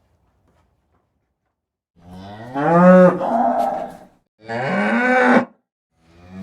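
Cow mooing: a long low moo starting about two seconds in, a shorter second moo right after, and a third just beginning at the end.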